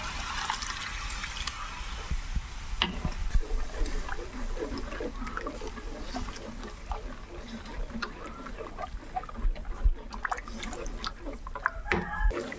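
Pork blood and vinegar pouring into a pot of simmering pork for dinuguan for the first few seconds. Then the darkening sauce bubbles and gurgles in irregular small pops as it is stirred, with a few light knocks.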